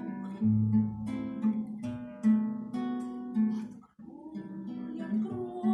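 Acoustic guitar strummed and plucked in an instrumental passage of a romance, breaking off briefly about four seconds in before the accompaniment resumes.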